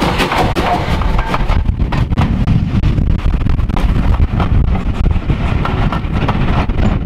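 LSWR T9 4-4-0 steam locomotive passing close by, followed by its coaches rolling over the rails with a steady rumble. Strong wind buffets the microphone throughout.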